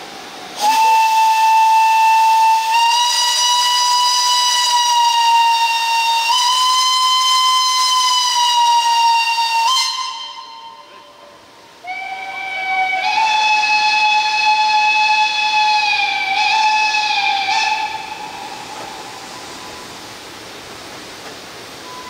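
Narrow-gauge forest-railway steam locomotive's whistle blown in two long blasts. The first lasts about nine seconds and shifts slightly in pitch. After a short gap comes a second, slightly lower blast of about five seconds, then a steady hiss remains.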